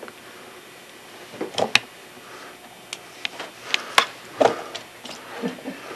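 Handling noises: a scattered series of light clicks and knocks, clustered about a second and a half in and again from about three to four and a half seconds in, with quiet room tone between.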